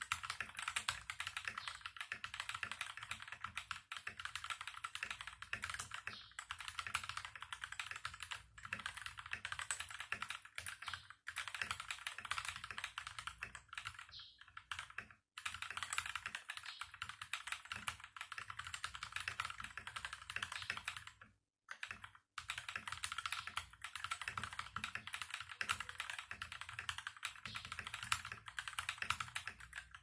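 Vortexseries VX5 Pro mechanical keyboard with stock KTT Sea Salt linear switches and holee-modded stabilizers being typed on quickly and steadily: a dense run of keystroke clacks, broken by a brief pause about halfway and another about two-thirds of the way in.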